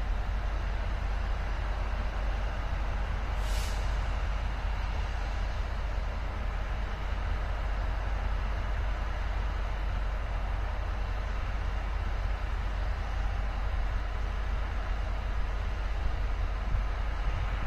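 A steady low outdoor rumble, with one short burst of compressed air hissing from a train's air brakes about three and a half seconds in.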